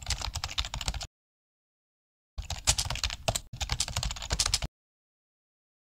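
Typing sound effect: rapid keyboard key clicks in two runs, the first stopping about a second in and the second starting over a second later and running for about two seconds.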